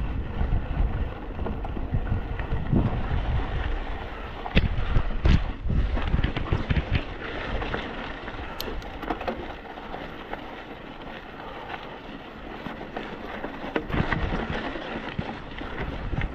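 Wind buffeting the microphone, with rattles and sharp knocks from a mountain bike riding over a rough trail; the loudest knocks come about four to five seconds in and again near fourteen seconds.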